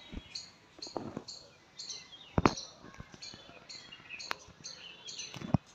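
A bird chirping over and over, short high notes about twice a second in an even rhythm. Two sharp knocks cut in, one about halfway and one near the end.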